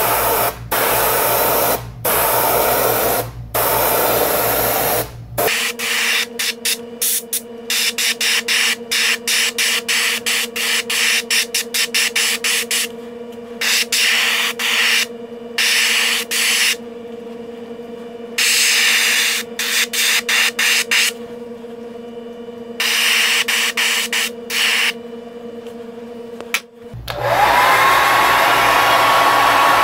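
Airbrush spraying paint in many short hissing bursts as the trigger is pulled and released, with a steady hum behind. About 27 seconds in, a hair dryer switches on with a rising whine and then runs steadily to dry the paint.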